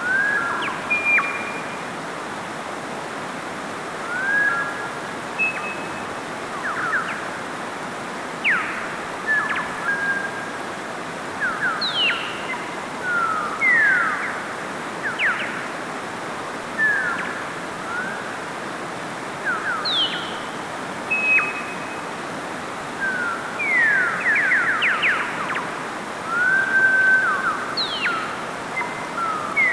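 Mountain stream rushing steadily over rocks in small cascades, with frequent short chirps and quick whistled pitch sweeps over it.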